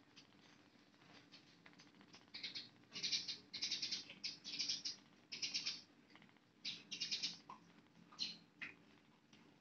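Young kittens squeaking while they nurse: a series of short, high-pitched squeaks that starts about two seconds in and comes in clusters until near the end.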